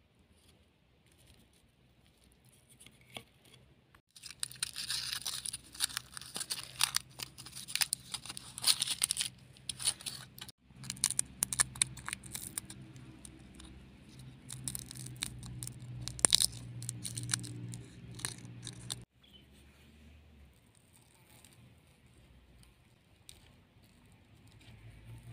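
Dry, papery garlic skin crackling and tearing as it is peeled by hand off a fire-roasted garlic bulb, in many quick, irregular crackles.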